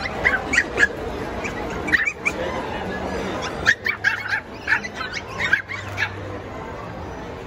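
Small Pomeranian puppies yapping: quick, high-pitched barks in runs of several at a time, over a steady background din.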